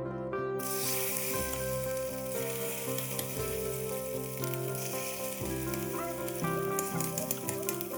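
Food sizzling in a frying pan, a steady hiss that starts about half a second in, over background music.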